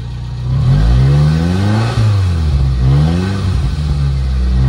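Maruti 1000's one-litre three-cylinder engine heard at the exhaust tailpipe, revved in repeated throttle blips, its pitch rising and dropping back about four times.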